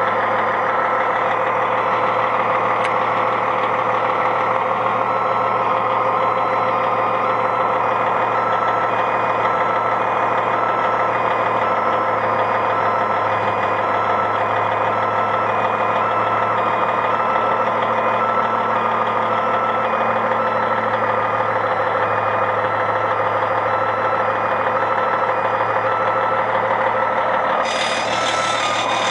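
Morbark 3800XL tracked horizontal grinder running steadily under its engine, with a repeated beeping alarm over it. A high hiss starts near the end.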